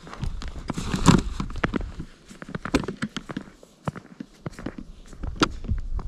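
Boot footsteps crunching in thin snow on new lake ice, an irregular run of crunches and clicks, heaviest about a second in.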